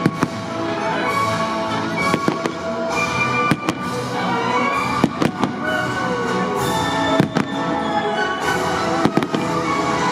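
Aerial firework shells bursting in a display: a dozen or so sharp bangs, several coming in quick pairs, over music with long held notes.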